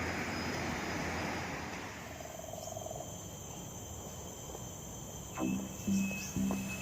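Outdoor ambience: a broad, steady rushing noise for about two seconds, then quieter background with a faint steady high-pitched insect drone. Plucked acoustic guitar music starts about five seconds in.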